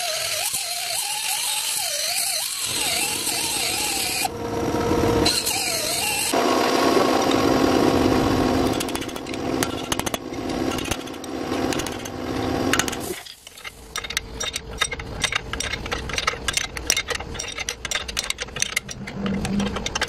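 Angle grinder cutting metal, its pitch wavering under load, for about thirteen seconds. It cuts off suddenly and is followed by a run of quick, irregular metallic clicks from a wrench working a suspension bolt.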